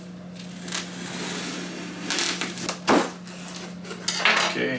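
A cardboard shipping box being handled and its packing tape worked at: several short scraping, crinkling bursts, the loudest about two to three seconds in and again near the end, over a steady low hum.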